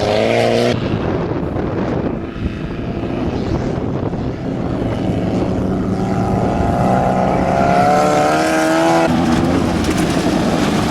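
VW Bug off-road race car engine running, its pitch rising and wavering between about six and nine seconds in.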